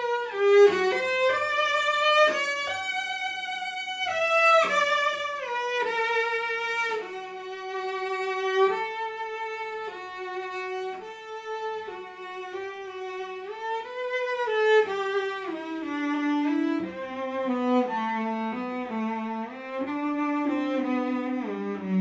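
Unaccompanied cello played with the bow: a melodic passage in the instrument's upper register that works its way down into the lower register in the second half.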